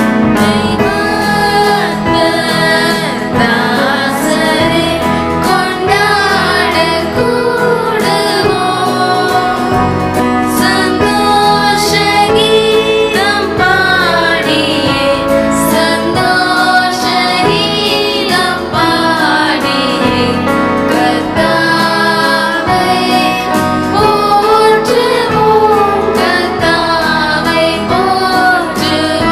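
Devotional song: a woman singing a melody over steady instrumental accompaniment.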